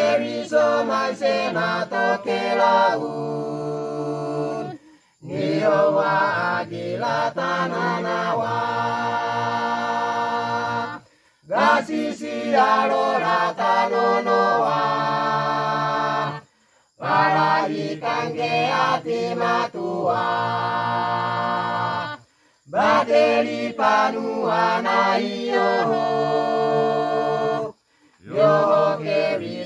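Village choir of men, women and children singing a cappella in the Misima language, in held phrases about five to six seconds long with brief pauses between them.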